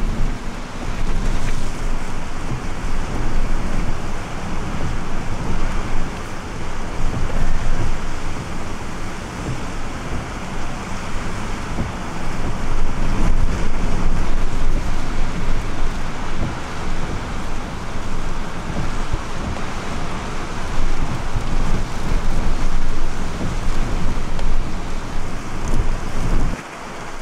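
Strong storm wind of about 100 km/h buffeting the microphone, a loud low rumble that rises and falls with the gusts, over rough, wind-whipped storm-surge water.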